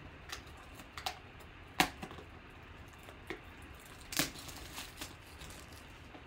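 Faint crinkles and clicks of plastic shrink wrap being peeled off a cardboard trading-card box, with a few sharper crackles about two and four seconds in.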